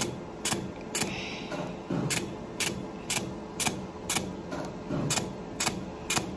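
Laser hair removal device pulsing, a sharp click about twice a second at a steady rate, with a brief faint hiss about a second in.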